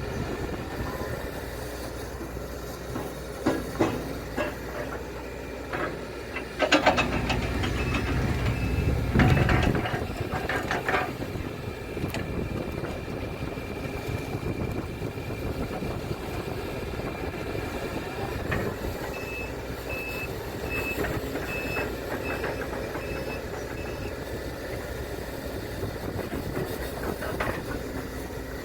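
Case CX210D excavator's diesel engine running steadily while it works, with heavy clanks and scraping mostly in the first half. A high beeping alarm sounds in runs, about two beeps a second, briefly around eight seconds in and again for several seconds past the middle.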